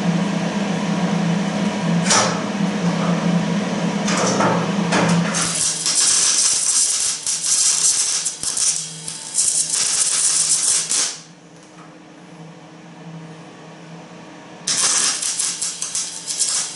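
Welding arc crackling and sputtering as weld is laid to reattach a wheel to its steel extension: a few short crackles over a steady hum at first, then a long run of dense crackling from about five seconds in, a pause near eleven seconds, and another run near the end.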